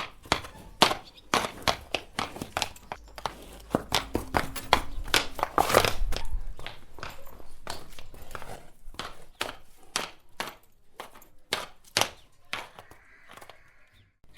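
Horse hooves clopping on a hard surface in an irregular stream of sharp hoofbeats, a few per second, thinning out near the end.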